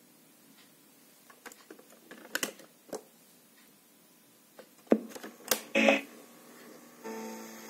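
Clicks and clunks of a Philips AM174 portable cassette player's piano-key controls being worked by hand, the loudest a few sharp clunks about five to six seconds in as a key is pressed down. About seven seconds in, a steady hum and tape hiss begin as the deck starts running.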